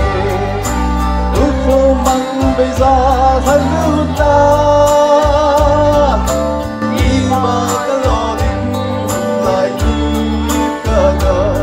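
A man singing into a microphone over backing music with a bass line and a steady beat, holding long notes with vibrato.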